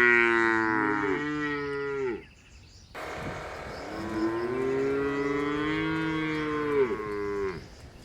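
A cow mooing twice: a call of about two seconds, then after a short pause a longer one of about four and a half seconds.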